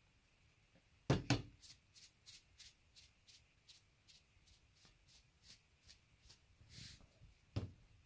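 Two sharp knocks, then a run of light, evenly spaced clicks about three a second, and another knock near the end: kitchen handling sounds.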